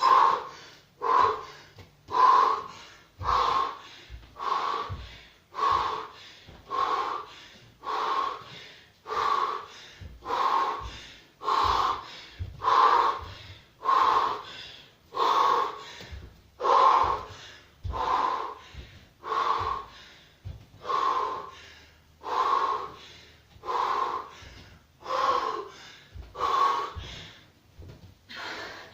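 A person breathing hard and loudly in a steady rhythm, about one heavy breath a second, while squatting with a heavy kettlebell.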